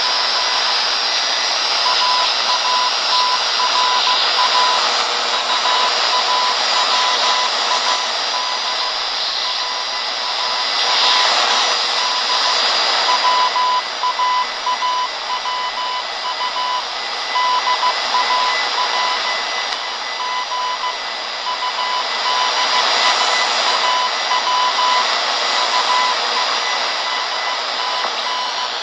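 Shortwave radio receiver hissing with static, with a Morse code signal coming through as a single beeping tone keyed on and off in dots and dashes from about two seconds in.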